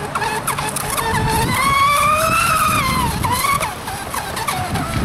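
RC Triton speedboat's motor whining at full speed on a pass, with the hiss of spray off the hull. The whine's pitch climbs for about a second and then falls away, loudest around the middle.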